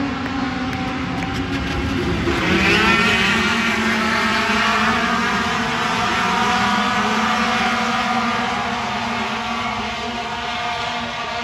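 A pack of racing sport-truck engines running hard together, swelling and rising in pitch about two seconds in as the trucks accelerate, then holding steady at speed.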